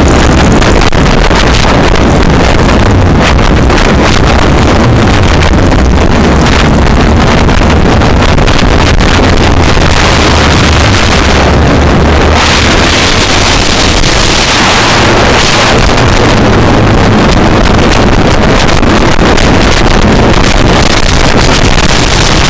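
Formula Ford 1600 race car's Ford 1600 crossflow four-cylinder engine running hard at racing speed, loud and continuous, with heavy wind noise on the microphone.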